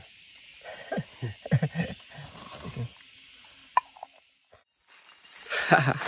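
Steady hiss of insects behind quiet talking, with a single sharp click a little past the middle; then a brief gap and louder speech near the end.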